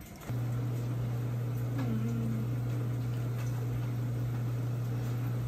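A steady low hum with a faint hiss over it. The hum holds level throughout.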